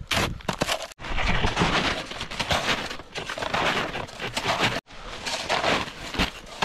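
Snowshoes crunching through snow in a steady walking rhythm, step after step. The sound breaks off sharply about a second in and again near five seconds, then picks straight back up.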